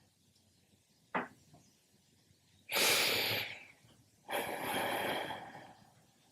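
A person breathing audibly close to the microphone: a deep breath in, then a longer breath out. A short click comes about a second in.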